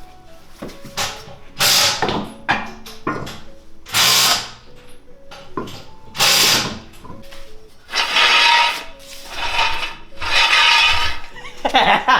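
Power tool run in short bursts: three runs of about half a second, then two longer runs of about a second each near the end.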